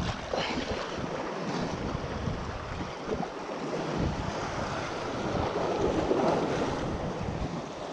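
Sea surf washing against the shore rocks, with wind buffeting the microphone.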